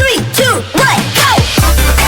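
Electronic dance music: the beat drops out for a breakdown of falling and swooping synth tones, then the heavy bass and beat come back in about one and a half seconds in.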